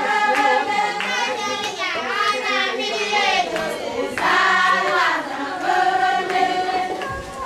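A group of voices singing together, mostly high voices, with a few handclaps.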